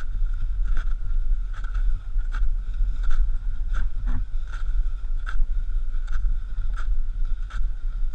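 Wind buffeting a pole-held action camera's microphone as a low, steady rumble, with the regular crunch of a climber's steps in snow about every three-quarters of a second.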